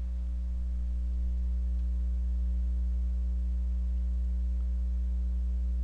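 Steady low electrical hum with several faint higher overtones, unchanging throughout: mains hum picked up by the recording setup.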